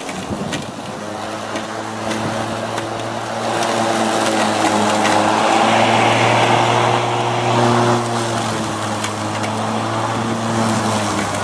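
Greenworks 12-amp, 20-inch corded electric lawn mower running as it is pushed through tall grass: a steady motor hum under the rushing sound of the blade cutting. The cutting grows louder from about three seconds in and eases off again near eight seconds.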